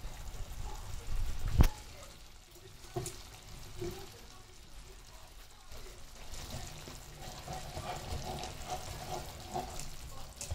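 Pan of canned pilchards and onions cooking on the stove, with a spoon stirring it. One sharp knock about one and a half seconds in is the loudest sound.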